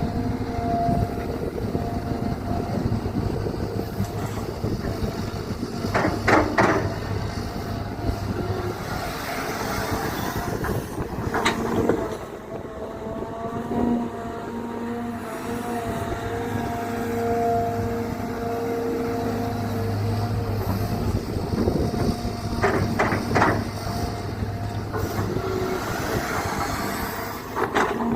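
Caterpillar 320GC hydraulic excavator digging, its diesel engine running steadily under changing load. Short sharp knocks come in small clusters about six seconds in, about eleven seconds in and about twenty-three seconds in.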